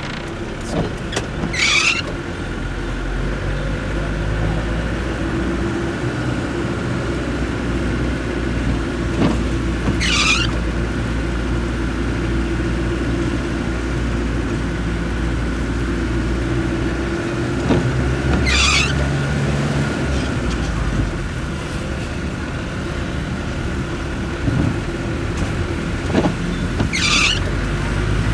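Car engine running at low speed in slow town traffic. A short high squeal cuts in four times, about every eight or nine seconds.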